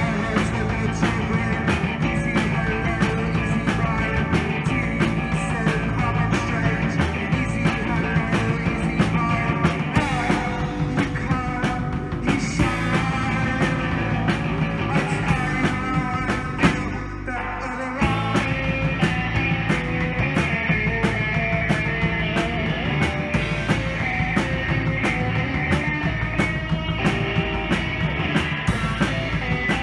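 Live rock band playing: electric guitar, electric bass and drum kit. The music drops back briefly about 17 seconds in, then the full band comes back in.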